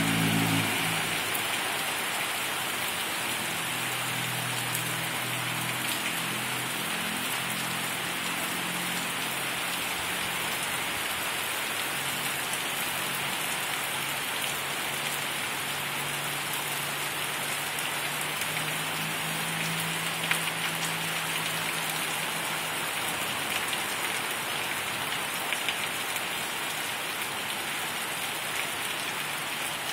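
Heavy rain pouring steadily onto a flooded street, grass and trees, a constant hiss of falling water. A car driving through the floodwater fades out in the first second or so, and a few sharp taps stand out later on.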